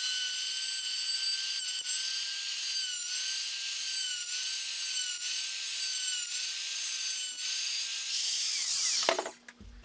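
DeWalt router running at full speed: a steady high whine with cutting noise as its half-inch bit routes box-joint slots through a dovetail jig. The pitch dips briefly a few times as the bit takes load. About eight and a half seconds in the router is switched off and winds down.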